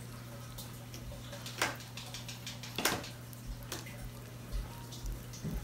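Water being emptied from a glass jar onto potting soil in a plastic seed tray. There are a few sharp clicks and taps, the loudest about one and a half and three seconds in, over a steady low hum.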